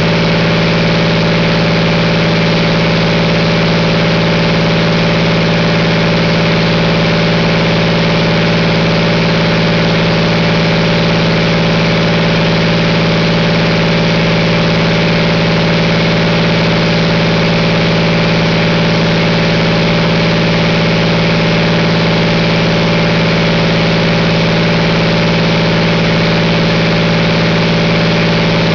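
2009 Cummins ISB6.7 inline-six turbodiesel engine running steadily at a constant speed, with no revving or change.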